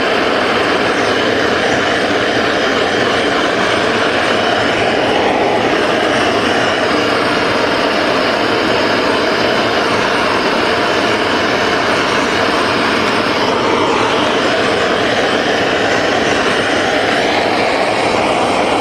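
Handheld gas torch burning steadily with a loud rushing flame, heating a copper boiler tube before silver soldering.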